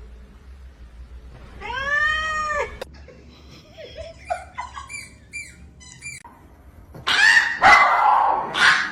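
A domestic cat meowing: one long call that rises and falls, then a run of short chirping calls, and near the end a loud, rough, noisy burst.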